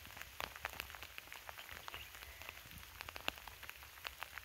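Light rain falling, with individual raindrops landing as scattered, irregular faint ticks.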